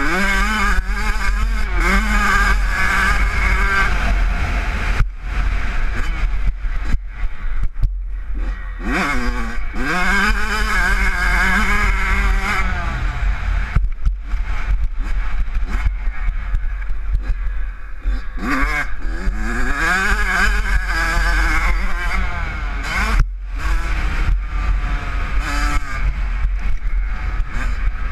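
Kawasaki KX85's two-stroke engine revving hard as the dirt bike is ridden around a motocross track, its pitch rising sharply several times as it accelerates out of corners, then holding high, with short breaks where the throttle is chopped. A steady low rumble of wind on the helmet-mounted microphone runs underneath.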